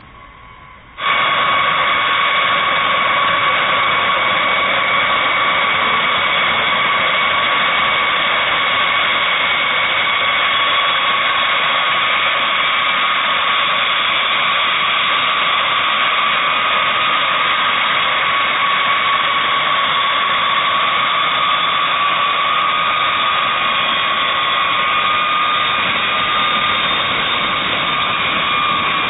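B-52 Stratofortress's eight TF33 turbofan engines running steadily with a high turbine whine over a loud rushing noise. The sound starts abruptly about a second in.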